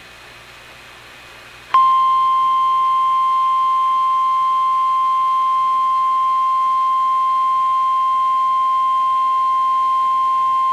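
NOAA Weather Radio's 1050 Hz warning alarm tone: one steady, high beep held for about nine seconds that cuts off sharply, signalling that an urgent alert, here a tornado watch, is about to be read. Before it there is a couple of seconds of faint radio hiss.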